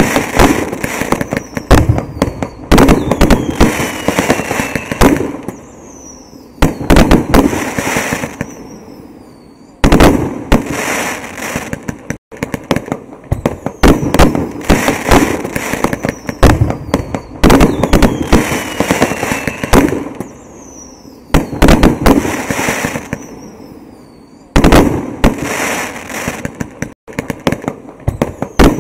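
Fireworks going off: repeated loud bangs and crackling, with a few falling whistles. The same stretch of sound repeats about every fifteen seconds, as a looped recording.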